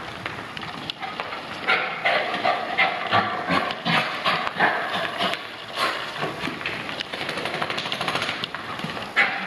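Bichon Frise rubbing its face and body along a rug and scrambling about, making a busy run of irregular scuffing and scrabbling noises. This is the frantic rubbing these dogs do after a bath.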